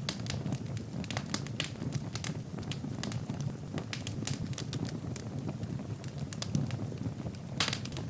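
Wood fire burning in a fireplace: many small crackles and pops over a low steady rush of flames, with a brief louder cluster of crackles near the end.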